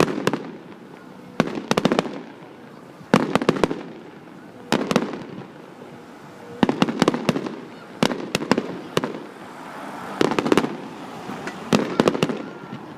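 Fireworks going off in a steady series: a cluster of sharp cracks about every second and a half, each followed by a short fading rumble.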